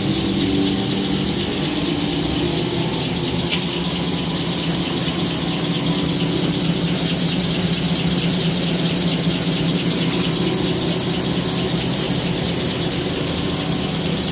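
Small toilet tissue rewinding machine running: a high whine that rises and levels off in the first couple of seconds as the machine reaches speed, over a steady hum and a fast, even rhythmic pulsing of the paper and rollers.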